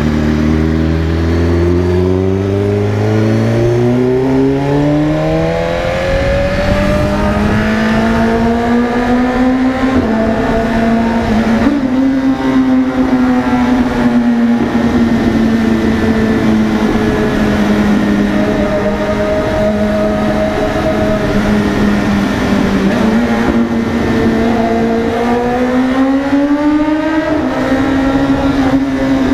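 BMW S1000RR inline-four engine accelerating hard, its pitch rising steadily over the first several seconds, then running high at speed with small rises and falls, and climbing again near the end.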